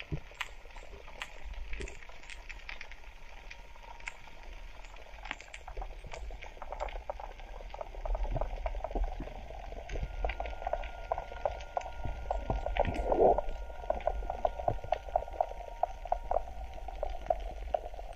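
Water heard underwater: a steady crackle of sharp clicks with bubbling and gurgling, which becomes louder and denser about halfway through.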